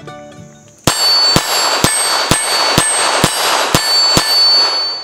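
Eight quick shots from a Ruger LCRx .22 LR revolver, about two a second, emptying its eight-round cylinder, each followed by the ring of a steel plate target being hit. The ringing dies away shortly after the last shot.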